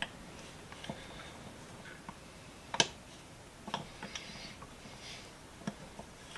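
Scattered sharp metal clicks and taps with faint scraping while the screw is worked out of a small cast-iron bench vise, the loudest click a little before the middle.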